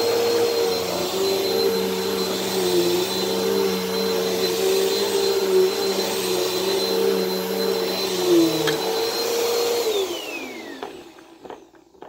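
Bagless upright vacuum cleaner running steadily with a high motor whine. It is switched off about ten seconds in, and the whine falls in pitch as the motor spins down.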